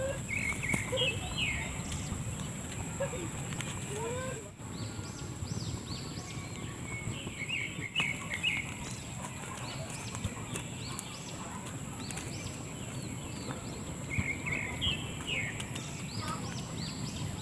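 Birds chirping in short bouts, with a few lower sliding calls early on, over a steady high-pitched whine.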